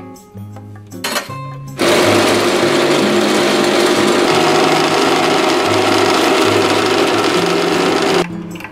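De'Longhi espresso machine's vibration pump buzzing steadily for about six seconds as it pushes water through the portafilter to pull an espresso shot, then cutting off sharply near the end. It is preceded by a few light clicks from the portafilter being fitted.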